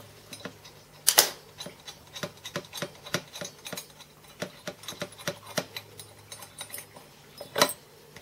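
Metal machine parts being handled and separated by hand: a run of small irregular clicks and knocks, with one louder clack about a second in and another near the end.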